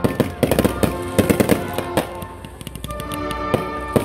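Aerial fireworks bursting in quick, sharp bangs and crackles, thickest in the first second and a half and again near the end, with a brief lull between. Music plays steadily underneath.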